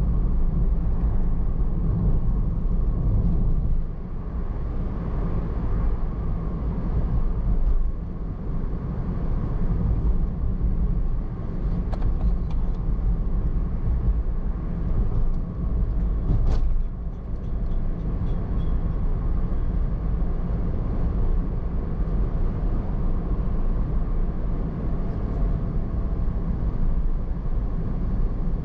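Steady low rumble of a car driving on a road: road and engine noise, with a few short dips in loudness and a couple of faint clicks midway.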